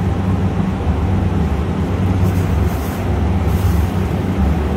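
Steady low machinery hum and rumble, with a faint rustle of handling about halfway through.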